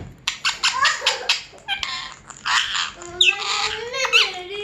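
Pet parrot squawking: a quick run of harsh, raspy calls, then longer screeching calls that rise and fall in pitch in the second half.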